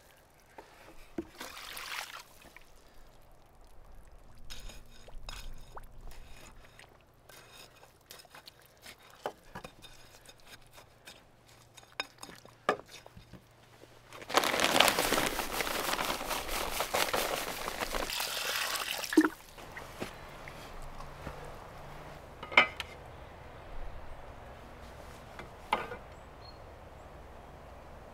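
Water poured from a bucket onto the concrete mix around a door post footing, with scattered knocks and clinks. The loudest part is a steady pour of about five seconds a little past the middle, ending in a sharp knock.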